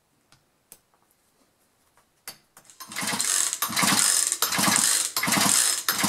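Recoil starter of a Poulan Pro 40cc two-stroke chainsaw being pulled in quick succession, about four pulls in a row starting about halfway through, with a few small clicks before. The engine spins freely with the spark plug out, cranking for a spark test.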